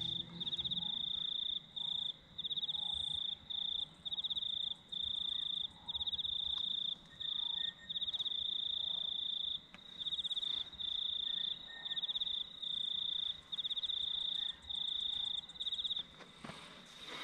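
A cricket calling: a high, pulsed trill repeated in short bouts of about half a second to a second and a half with brief gaps between them, stopping about a second before the end.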